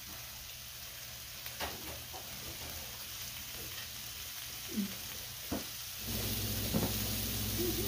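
Beef slices sizzling on a hot tabletop griddle, with a few light clicks of chopsticks. A low steady hum comes in about six seconds in.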